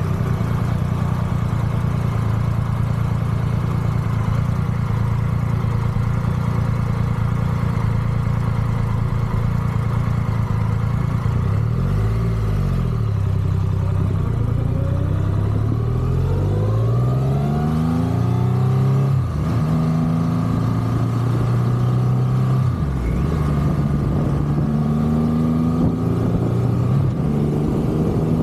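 Triumph Rocket 3's big three-cylinder engine running steadily, then, about twelve seconds in, pulling away and rising in pitch through several gear changes.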